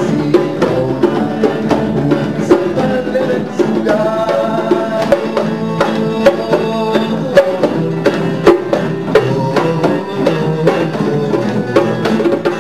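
Music played on drums and guitar: a busy, steady rhythm of frequent drum strikes under strummed and plucked guitar notes.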